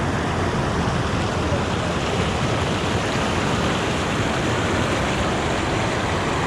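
Steady rush of water flowing over rocks in small cascades and falls.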